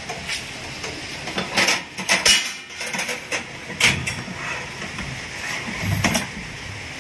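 Scattered metallic clinks and rattles of a gas range's wire oven rack being knocked and shifted with a long metal rod, over a steady hiss.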